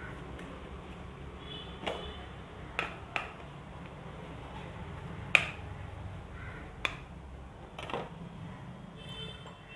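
Plastic makeup compacts and cases clicking and knocking as they are handled, wiped and set down into a clear plastic storage box: about six separate sharp clicks, the loudest a little past halfway, over a steady low hum.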